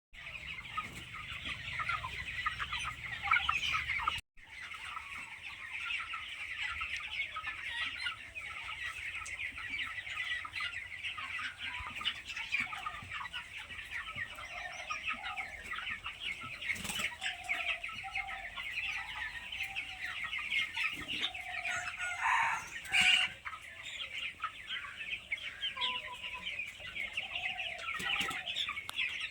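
A flock of chickens in a poultry house: a dense, continuous chorus of short high calls with scattered lower clucks. The sound cuts out completely for a moment about four seconds in.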